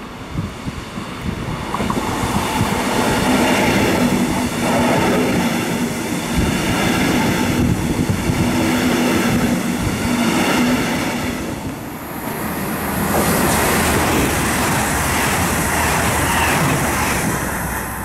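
Regional Express train of double-deck coaches, pushed by a class 112 electric locomotive, running in past the platform: the wheels clatter over the rail joints, with a steady low hum beneath. From about twelve seconds a different, hissier rushing noise takes over.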